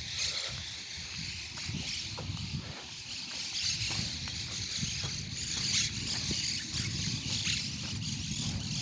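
Outdoor morning ambience: birds chirping and chattering over a steady low rumble.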